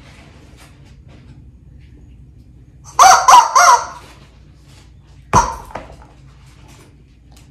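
Squeaky chicken dog toy squeezed, giving a loud squawk in three quick pulses about three seconds in, then a sharp knock as the toy drops onto the tile floor.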